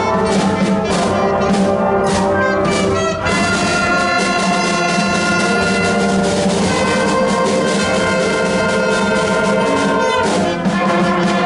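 School concert band playing, the brass to the fore: short repeated chords for the first three seconds or so, then long held chords.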